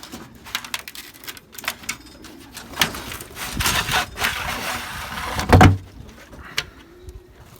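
Racing pigeons cooing in their loft, with scattered clicks and knocks and one loud thump about five and a half seconds in.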